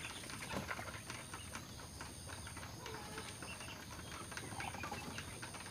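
A chicken sick with ngorok, a snoring respiratory illness, being handled while a feather is worked in its throat to clear mucus: irregular soft clicks and rustles, with a few brief faint calls.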